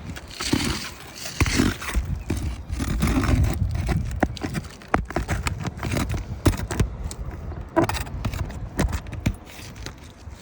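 Asphalt roofing shingles being pried and unsealed with a flat bar: scraping and tearing with many sharp clicks and knocks as the tool works under the shingle tabs and nails. A low rumble of wind on the microphone runs underneath.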